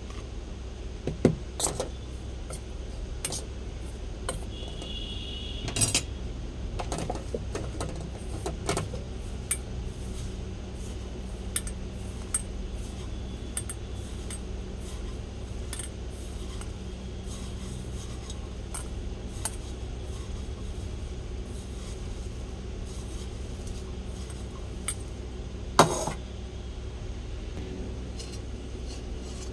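A spoon clinking and knocking against a bowl while the grated bottle-gourd mixture is stirred, in irregular clinks with a few louder knocks.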